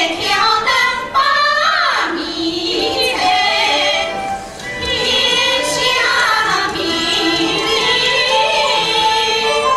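Women's voices singing a Yue opera (Shaoxing opera) aria over instrumental accompaniment.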